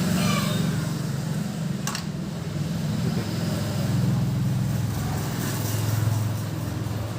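A low, steady engine-like drone that shifts slowly in pitch, with a single click about two seconds in.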